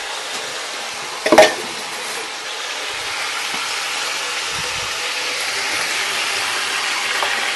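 Food sizzling in a pot on the stove, a steady hiss, with one sharp knock about a second and a half in.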